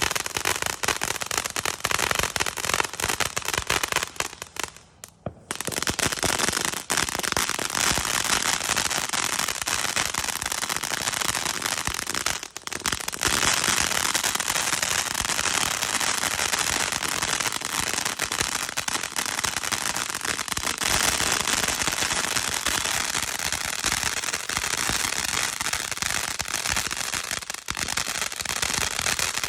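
500-gram 'Psychedelic' consumer firework cake firing: a dense, continuous rattle of popping and crackling shots, with a short lull about four to five seconds in.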